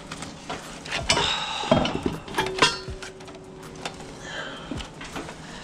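Metal clinking and knocking as an exhaust header is handled and pushed into place against the engine, with three sharp knocks in the first three seconds and scraping and handling noise between.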